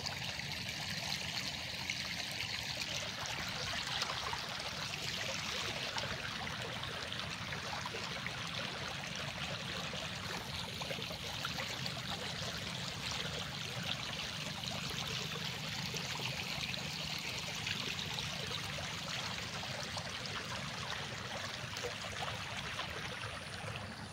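Floodwater from rain-flooded rice paddies running fast over the ground: a steady sound of flowing, trickling water.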